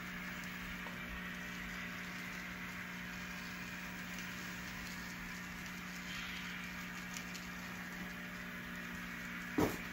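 N scale model freight train running along the layout track: a steady running noise of wheels on rail with a low constant hum, and a single sharp knock near the end.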